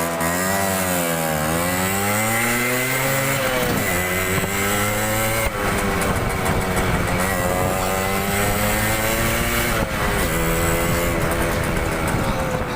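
Motorcycle engine running under way, its pitch climbing and dropping back several times as the throttle is opened and closed.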